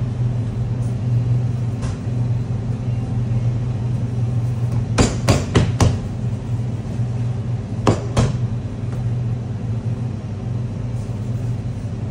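Steady low hum of kitchen machinery, with a quick run of about four sharp knocks about five seconds in and two more about eight seconds in, as croissant dough is worked by hand on a stainless steel bench.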